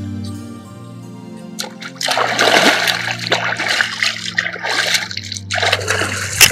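Shallow muddy water splashing again and again as it is scooped and thrown by hand, starting about two seconds in, over steady background music.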